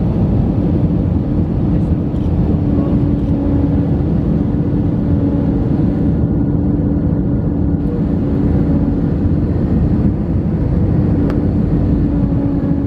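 Airbus A319 cabin noise on approach, heard from a window seat over the wing: the steady rush of the jet engines and airflow, with a steady droning tone running through it.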